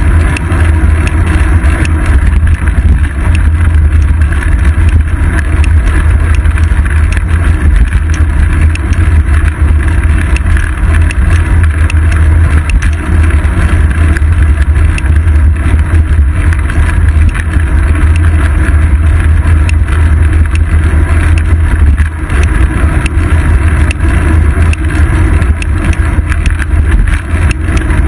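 Steady, loud low rumble of wind buffeting and road vibration on a seat-post-mounted action camera's microphone as the bicycle rolls along.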